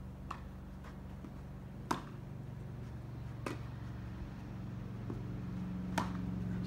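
A ball being struck and bouncing in a doubles rally: a series of sharp, short knocks at uneven intervals, the loudest about two seconds in and near the end, over a steady low hum.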